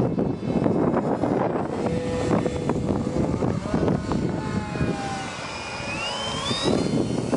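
Radio-controlled model airplane's motor whining, rising in pitch near the end, under heavy wind noise on the microphone.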